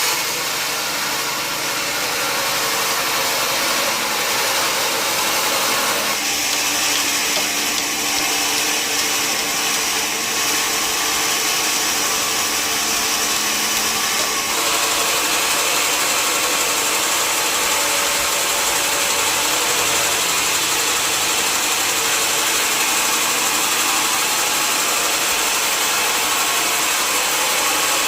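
Sawmill machinery running steadily, with loud, continuous saw and machine noise. The sound changes about six seconds in and again around halfway through.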